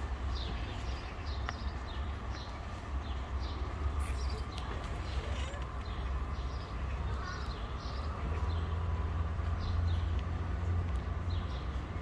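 Small birds chirping in short, quick falling notes, several a second in clusters, over a steady low rumble.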